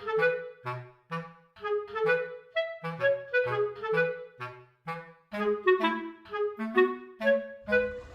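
Instrumental background music: a lively tune of short, separate notes in a bouncy rhythm.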